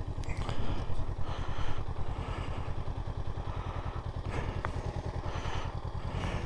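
2022 Honda CB500X's parallel-twin engine idling with a steady, even, rapid pulse.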